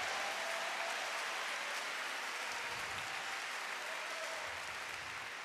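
Crowd applause, an even patter that fades slowly.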